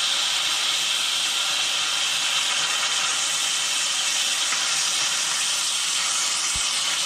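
Instant Pot electric pressure cooker venting steam through its pressure release valve in a steady hiss, the valve held open with a wooden spoon under a towel: a manual quick release of pressure after cooking.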